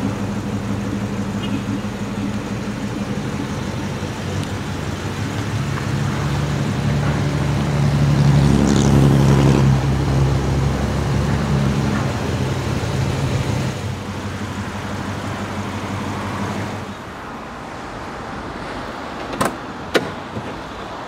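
A motor vehicle engine running steadily, swelling louder in the middle and then dropping away, with traffic noise behind it. Near the end, two sharp clicks as a car door's handle and latch are pulled open.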